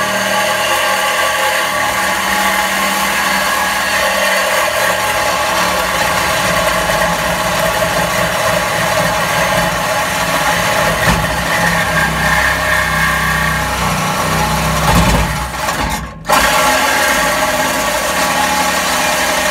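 Cordless reciprocating saw running continuously as it cuts through an old steel exhaust pipe, stopping briefly about three quarters of the way through and then cutting on.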